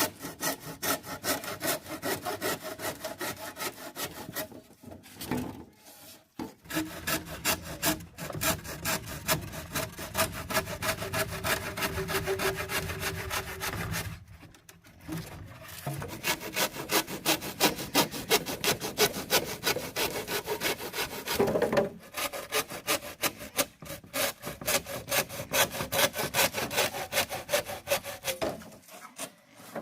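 Quick, rhythmic rasping strokes, several a second, like a hand tool scraping or sawing through wood. They come in three spells, with short breaks about five and fourteen seconds in and again near the end.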